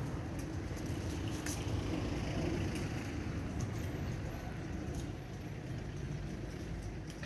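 Steady low rumble of distant road traffic, with a brief high-pitched tone about four seconds in.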